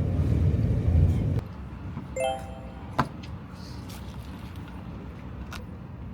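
Low road rumble inside a moving car, which cuts off about a second and a half in. A quiet hum follows, with a short chime just after two seconds and a sharp click a second later.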